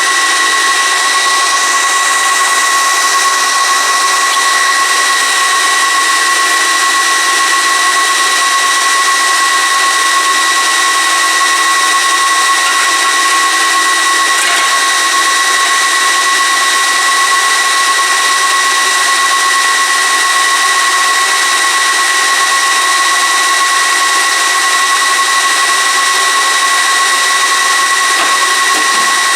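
Gigabyte R180-F34 1U rack server's fans running at full speed during its first power-on self-test: a loud, steady high-pitched whine and rush of air. The server has not finished posting, so its fans have not yet ramped down.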